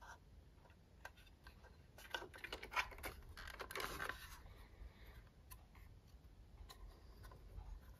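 Faint handling noise as a diecast model car is turned over in the hands: scattered light clicks and scratchy rubbing of fingers on the car, busiest from about two to four seconds in.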